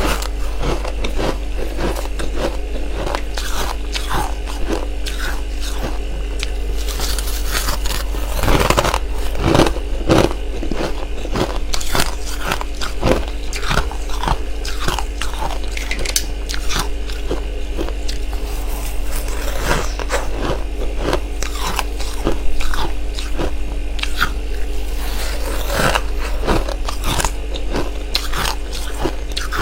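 Close-miked biting and chewing of freezer frost: repeated irregular icy crunches and scrapes throughout, with a few louder bites around nine to ten seconds in and again about two thirds of the way through.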